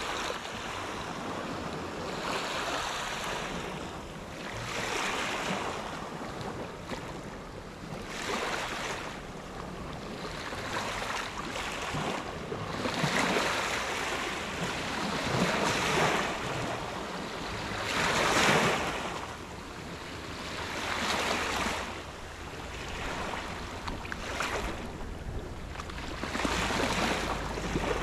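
Small sea waves breaking and washing up over a pebble-and-sand shore, each wash swelling and fading every two to four seconds.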